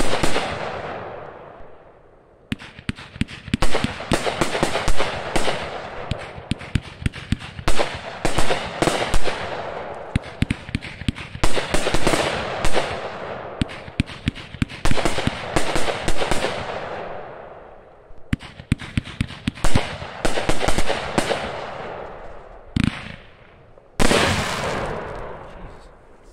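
Raccoon Fireworks 'Beetle Battle' 500g cake firing in volleys of rapid shots and crackling bursts. Each volley fades over a few seconds and a new one starts about every four seconds. A heavier thump and a final loud burst come near the end, then die away.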